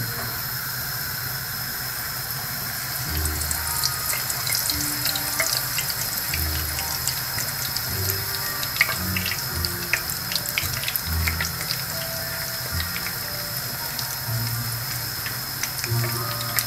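A poori deep-frying in hot oil in a wok: a steady sizzle, with sharp crackles and pops starting about three seconds in while a slotted spoon presses on the puffing bread.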